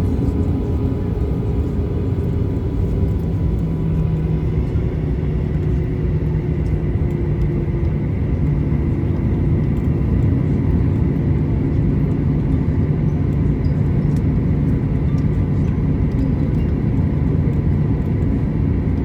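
Cabin noise of a Boeing 737-800 on the ground after landing: its CFM56-7BE engines running at low taxi power under a steady low rumble, with a few faint steady tones, heard from inside the passenger cabin.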